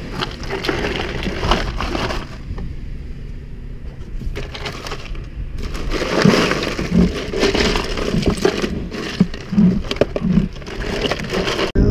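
Hands rummaging among fish and ice in a plastic Igloo cooler: ice crunching and rattling in a run of irregular clicks, with a few dull knocks against the cooler, busiest in the second half.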